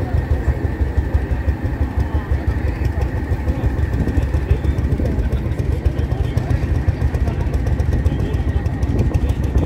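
Vintage tractor engine running steadily while standing still, a fast, even low chugging, with crowd chatter behind it.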